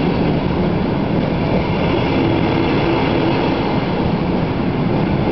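A train passing across the steel railway bridge right beside the walkway, a loud steady rumble and rolling noise that does not let up.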